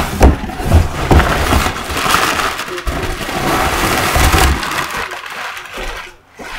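A large corrugated cardboard shipping box being torn open by hand: packing tape and cardboard ripping in a long noisy stretch, with dull knocks as the box is handled, easing off after about four and a half seconds.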